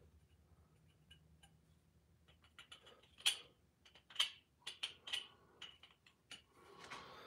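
Hand file scraping across the cut end of a small square steel tube: a few short strokes about a second apart, with light metal ticks and clicks between them.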